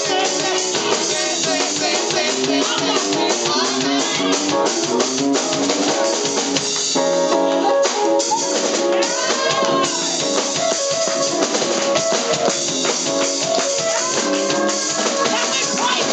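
Gospel praise music with a drum kit keeping a steady beat, with bass drum, snare rimshots and guitar.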